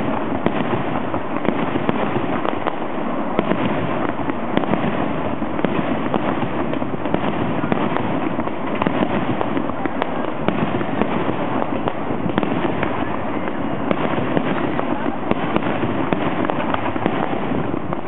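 Fireworks display going off: a dense, continuous run of many small cracks and pops with no pause and no single big boom standing out.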